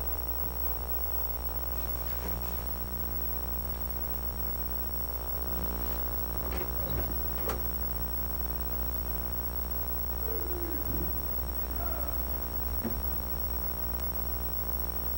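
Steady electrical mains hum and buzz with many overtones on an old videotape soundtrack, with a few faint knocks and rustles about halfway through.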